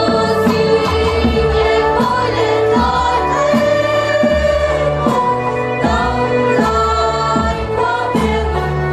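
Mixed choir of school students singing together over a low beat that comes about once a second.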